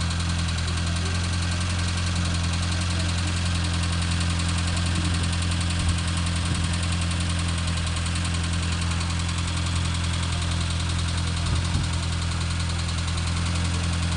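Sitayo 85 engine running steadily at a constant speed, a deep even hum, with a couple of brief low thumps along the way.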